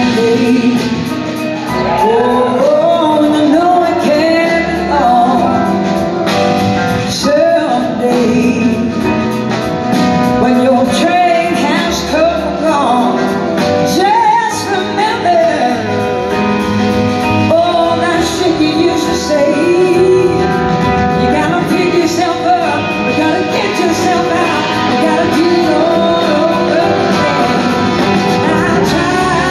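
A live blues-rock band playing, with a woman singing lead over electric guitar, keyboards and drums, heard from the audience in a large hall.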